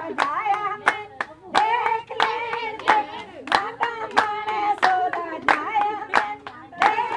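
A group of women singing a Punjabi gidda folk song, keeping time with loud, even hand claps at about three a second.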